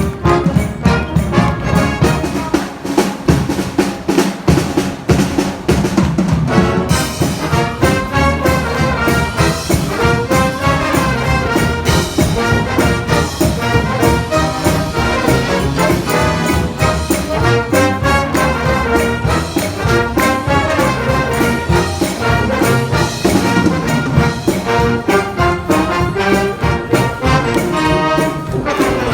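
High school wind band playing a lively piece, brass to the fore with trumpets and trombones over drums, the full band coming in about seven seconds in.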